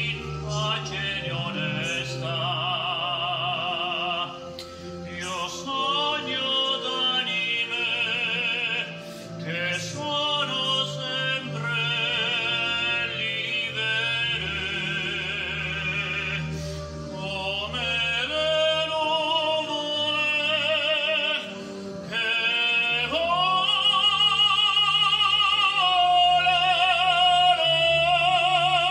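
A man singing in operatic style with wide vibrato over a sustained instrumental backing, swelling louder for the last few seconds.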